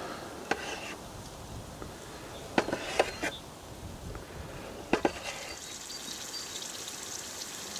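A knife slicing through a raw potato, its blade knocking sharply on the plate beneath a few times. About six seconds in, potato slices start sizzling and crackling in hot oil in a small pot.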